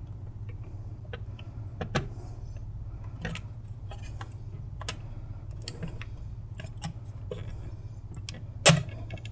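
Scattered small clicks and taps of plastic parts being handled as a circuit board is worked free of the plastic tab holding it in the microwave's control panel, with one sharper snap near the end. A steady low hum runs underneath.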